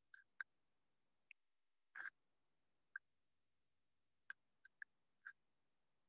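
Near silence, broken by about ten short, faint chirps scattered unevenly through it.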